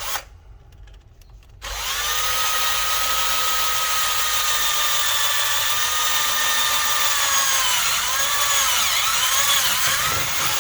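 An electric drill runs steadily for about nine seconds, boring a hole through the plastic head of a string trimmer. Its whine sags and wavers in pitch near the end as the bit bites under load, then stops.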